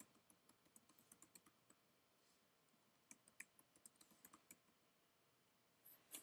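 Faint computer keyboard typing: two quick runs of keystrokes, each about a second and a half long, as a password is typed and then typed again to confirm it, with a slightly louder key press near the end.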